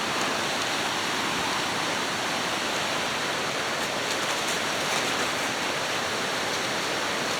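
Rushing water of a rain-swollen creek and waterfall, a steady, even rush of water.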